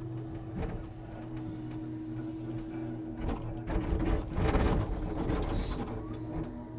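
Scania timber truck running with a steady low engine drone. A louder stretch of rattling and clattering comes from about three to five and a half seconds in.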